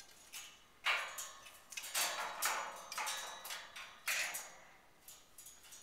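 A small metal bell toy being knocked about by an eclectus parrot: about five sharp clanks, each ringing on briefly, the first about a second in being the loudest.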